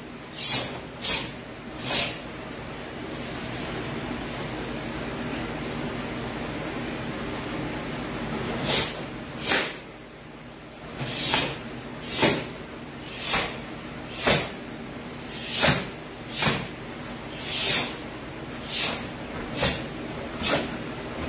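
A karateka performing a kata: short, sharp swishes with each fast technique, about fifteen in all at irregular spacing, with a pause of several seconds early in the form. A steady hiss runs underneath.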